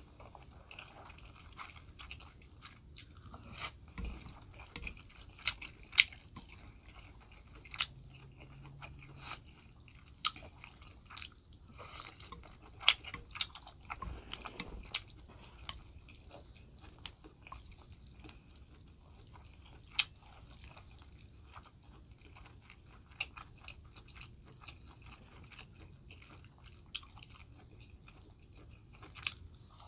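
Close-miked chewing of spicy champon noodle soup, with wet mouth sounds and scattered sharp smacks and clicks, busiest about halfway through.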